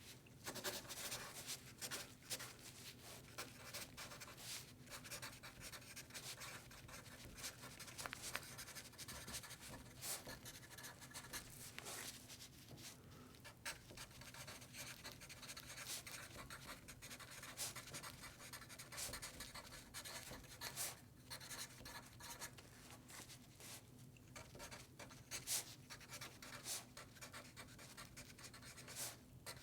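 Pencil writing on paper: a continuous run of faint scratchy strokes with small taps of the lead, over a faint low hum.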